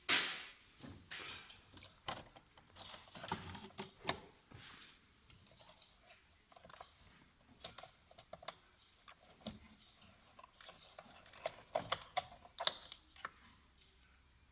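Irregular clicks, taps and knocks, as of things being handled, with a sharp knock at the start and a cluster of louder clicks near the end.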